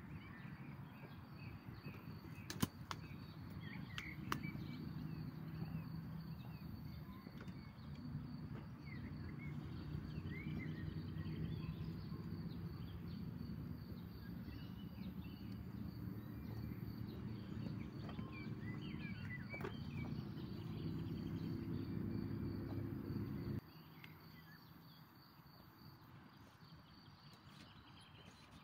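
Small birds chirping now and then over a steady low hum that cuts off suddenly about 23 seconds in.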